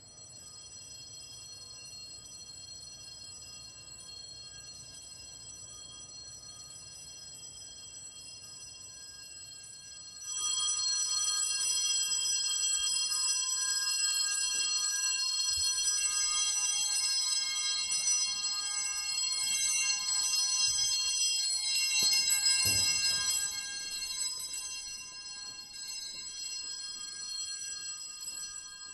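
High, shimmering chime tones, several at once, held steady. They begin faintly, grow much louder about ten seconds in, and ease off a few seconds before the end, with a couple of soft knocks under them.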